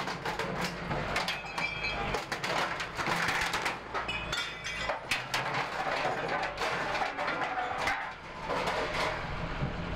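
Clatter of repeated knocks and bangs, with short high metallic squeals, over a steady low engine hum: demolition work on street structures.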